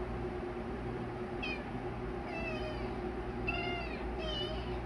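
Kitten mewing about four times, short high-pitched mews, over a steady low hum.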